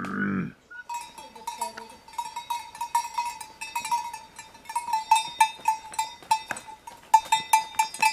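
Metal bells clanking, several strikes a second, each ringing at the same pitch; the clanking grows louder after about five seconds.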